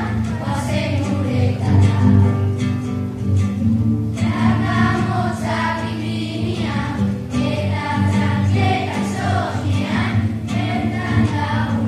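A children's choir singing together, accompanied by an acoustic guitar.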